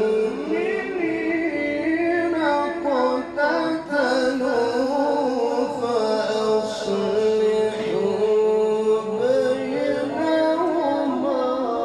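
A man's melodic Quran recitation in the drawn-out Egyptian mujawwad style. Long held notes and ornamented runs rise and fall. The voice is amplified over a hall's loudspeakers.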